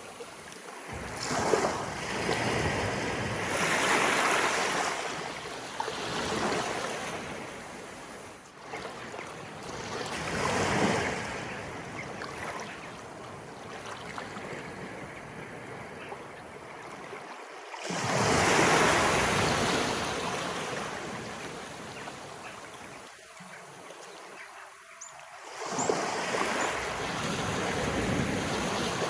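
Sea waves of an incoming tide rolling in and washing up, swelling and fading every few seconds. The biggest surges come about four seconds in and again about two-thirds of the way through.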